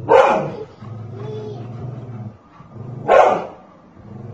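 Golden retriever giving two loud barks about three seconds apart: protective warning barks at a person threatening a child.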